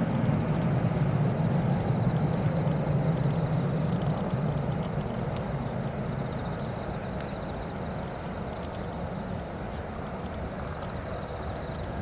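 Jet engines of a Boeing 777-300 airliner just after touchdown, a deep steady rumble that fades as the aircraft rolls away down the runway.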